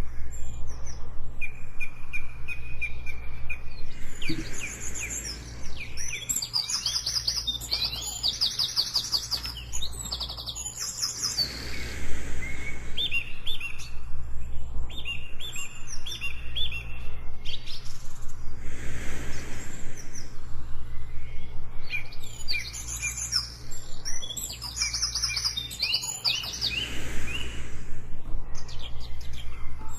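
Mixed jungle ambience: many birds chirping and trilling in overlapping calls, densest in two clusters, over a steady low rumble. A soft rush of slow breathing swells in about every seven seconds.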